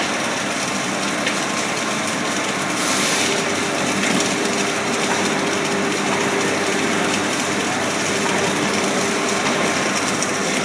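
Automatic submerged-arc welding line for I-beams running, a steady machine noise with a few faint steady tones, and a short hiss about three seconds in.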